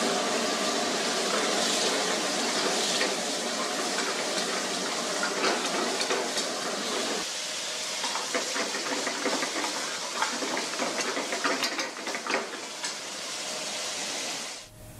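Steady hiss of a commercial kitchen range with a pan of curry gravy simmering and sizzling on a gas burner; many small pops and clicks come through in the middle and later part, and the sound drops away suddenly near the end.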